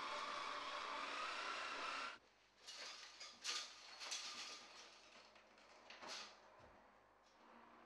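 A steady whirring hiss cuts off abruptly about two seconds in. Then come scattered knocks, rattles and scrapes as someone climbs in through a casement window, the sash and frame clattering.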